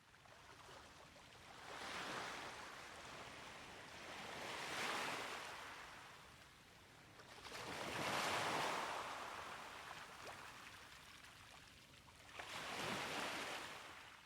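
Sea waves washing in, four swells of surf a few seconds apart, fading in at the start and out at the end.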